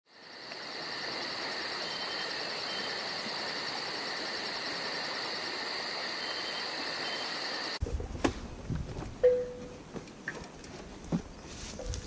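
Steady chorus of insects, a high shrill trill pulsing about five times a second, which cuts off abruptly about two-thirds of the way through. It gives way to footsteps on a forest floor with scattered knocks and rustles, the loudest a sharp knock about a second after the cut.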